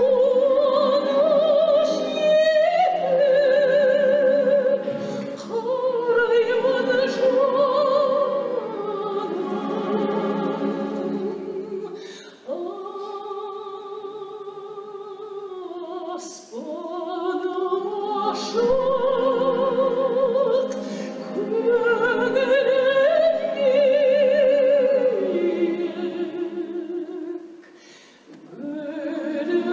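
Operatic singing in long held phrases with a wide vibrato, over classical instrumental accompaniment, with brief breaths between phrases.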